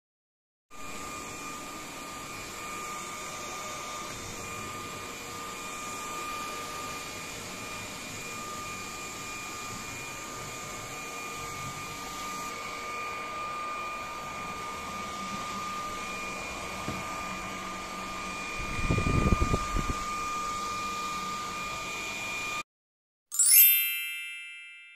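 Cordless stick vacuum cleaner running with a steady high whine, with a second or so of louder bumping about three-quarters of the way through. It cuts off, and a bright chime rings out and fades near the end.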